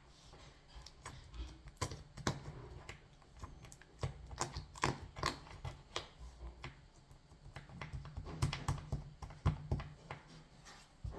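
Slime being squished and stretched by hand, making irregular sticky clicks and pops in quick clusters.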